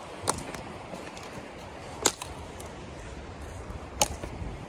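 Slow footsteps on a thin layer of frozen snow over a forest floor of leaves and twigs: three sharp crunches about two seconds apart, over a steady low rumble.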